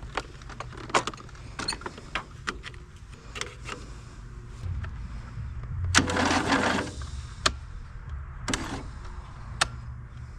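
Scattered sharp clicks, then from about five seconds in a low electric buzz of a starter motor for roughly two seconds, as a jump pack tries to crank a Briggs & Stratton 22 hp V-twin with a replacement starter. The engine does not turn over or catch.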